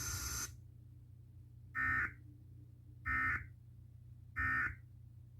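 Emergency Alert System end-of-message signal: three short, identical buzzing bursts of SAME data tones, about a second and a quarter apart, marking the end of the flash flood warning. Broadcast hiss cuts off about half a second in.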